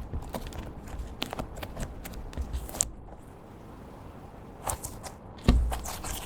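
Slime being mixed and squished, with scattered small clicks and crackles and one loud thump about five and a half seconds in.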